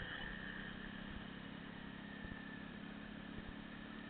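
Small motorcycle engine running steadily at riding speed, a steady drone with wind and road noise over it.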